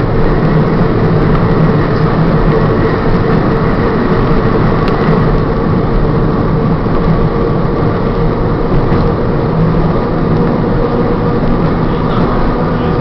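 Electric trolley car running along rail track, heard from inside the car: a steady rumble of wheels on the rails with a low hum under it.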